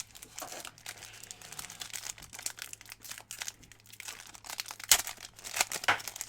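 A foil trading-card booster pack crinkling as it is handled and opened, a run of sharp crackles, the loudest about five seconds in.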